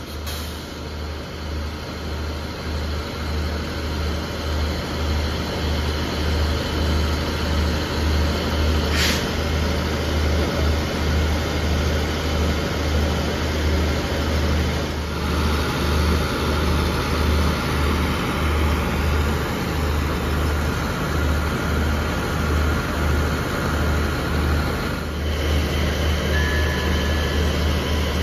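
Diesel engines of a standing passenger train idling: a steady, loud, low pulsing hum, with a short hiss about nine seconds in.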